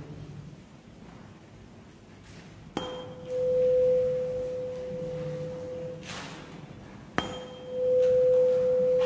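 A 512 Hz tuning fork is struck twice with a rubber hammer. Each strike gives a short clink, then a steady pure hum that swells louder about half a second later as the fork is held over the mouth of a resonance-column tube and the air column reinforces the tone near its resonant length.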